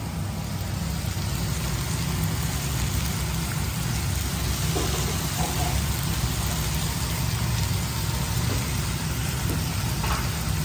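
Mutton and vegetables frying in a pan on a gas stove: a steady sizzle over a constant low rumble.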